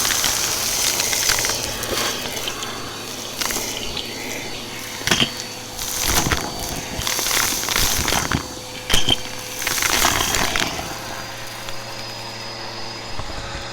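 Bissell PowerForce Helix upright vacuum running over a pile of dry debris, its brush roll crunching and crackling irregularly over a steady motor hum. The loudest crunches come about five and nine seconds in, and the crunching thins out near the end.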